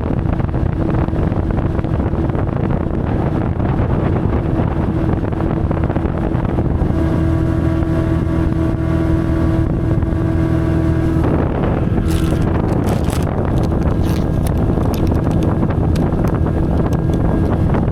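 Outboard motor of a fishing boat running at speed, a steady engine drone under loud rushing wind on the microphone.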